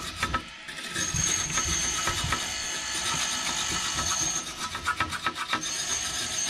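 Soft brush scrubbing the burner electrodes of an Ideal Logic gas boiler in many quick short strokes, cleaning them in place during a service. The scrubbing pauses briefly just after the start, and a thin high tone comes and goes with it.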